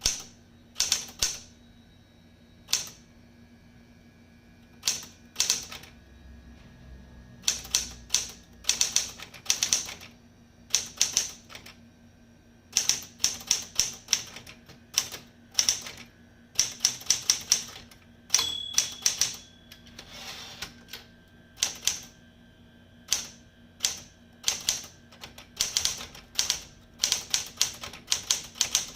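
SCM Sterling 12 manual portable typewriter being typed on: sharp key-and-typebar strikes in quick irregular runs with short pauses between words. A brief ring sounds about two-thirds of the way through.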